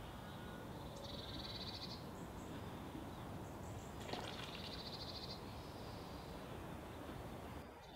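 A small bird trilling twice, each rapid high trill about a second long, over a faint low outdoor rumble.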